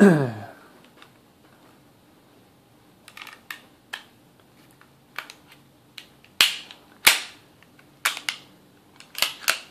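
Sig Sauer SP2022 9mm pistol being worked by hand after reassembly: a loud clack at the start, then a string of sharp metallic clicks and clacks from about three seconds in as the slide is cycled on its freshly greased rails.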